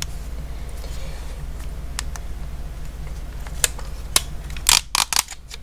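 Plastic clicks and rattles of a wireless car phone charger mount being handled and fitted together: a few sharp separate clicks, then a quick cluster of louder ones near the end, over a steady low hum.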